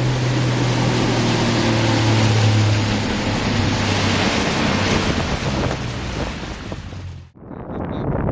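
Boat running under way: a steady low engine hum under a loud rush of wind and water, cutting off abruptly about seven seconds in.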